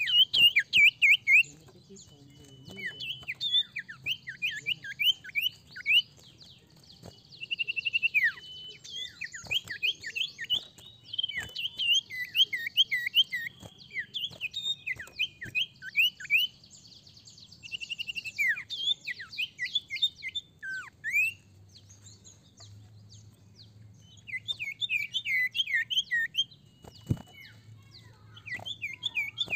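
Common iora (cipoh, known to keepers as sirtu) singing: repeated bursts of rapid, sharp, downward-sweeping chirps broken by short held whistled notes, with a pause a little past two-thirds of the way through.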